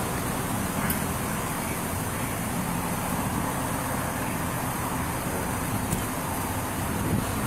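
Steady road-traffic and vehicle-engine noise from the street, picked up by a police body-worn camera's microphone.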